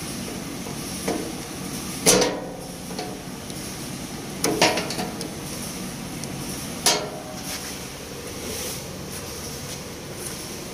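Steel needle-nose pliers knocking against a truck cab's sheet-metal panel: a light tap, then three sharp metallic clanks about two seconds apart, each ringing briefly. A steady background noise lies under them.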